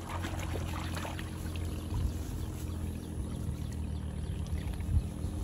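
Water splashing and dripping as rice seedlings are pulled up and gathered into a bundle in a flooded paddy nursery bed, with faint splashes near the start and again about two seconds in, over a low steady rumble.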